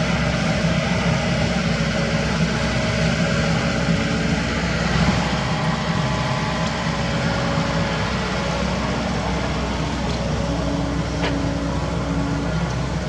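Kobelco SK75 mini excavator's diesel engine running steadily while it works the soil. A higher, steady whine comes in for about two seconds near the end.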